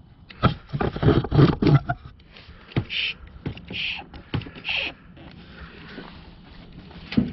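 Hand vacuum pump being squeezed on a purge solenoid: clattering pump strokes, then three short wheezing draws of air about a second apart, and a sharp click near the end. The solenoid should be sealed shut but does not hold vacuum, so the pump keeps drawing air through it: the sign of a bad EVAP purge solenoid.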